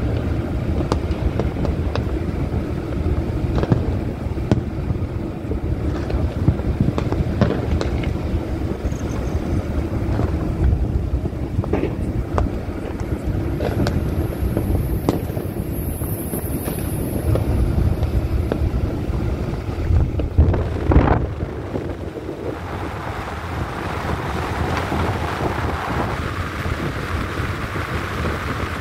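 Steady low rumble of road and wind noise from a car driving along a highway, broken by scattered sharp cracks of Diwali firecrackers, the strongest a couple around two-thirds of the way through. After that the low rumble drops away and a higher hiss takes over.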